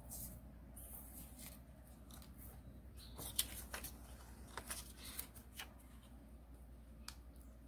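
A sheet of origami paper rustling and crinkling as it is handled and folded, with scattered soft crackles and one sharper snap about three and a half seconds in. A faint steady low hum runs underneath.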